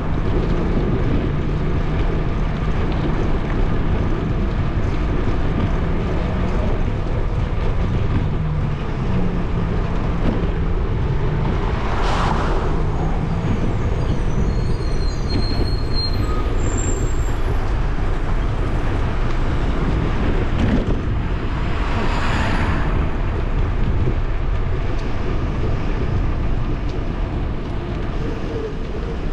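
Steady wind and road noise from a camera riding on a bicycle along a city street. Vehicles pass by twice, about twelve and twenty-two seconds in, and there are a few faint high chirps around the middle.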